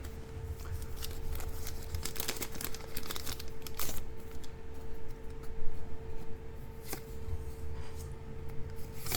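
Foil trading-card booster pack wrapper crinkling and tearing as it is handled and opened, in a run of sharp, irregular crackles that are densest a few seconds in. A faint steady hum runs underneath.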